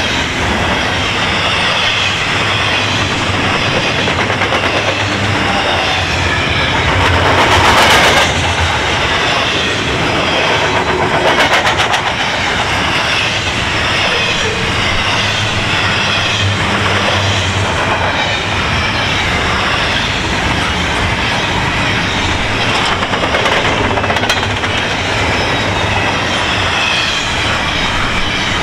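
Double-stack container well cars of a freight train rolling past at speed: a steady rumble with wheels clattering over the rail joints, and a few brief louder surges.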